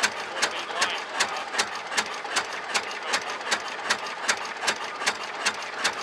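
A c. 1913 Victoria oil ploughing engine's horizontal twin-cylinder petrol-paraffin engine running slowly and evenly, with sharp firing beats about two and a half a second. It is running on only one cylinder, as a bystander remarks.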